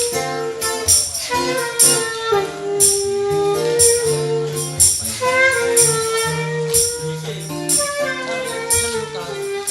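Band playing an instrumental passage of a song: a held melody line over bass notes, with drum and cymbal hits keeping a steady beat.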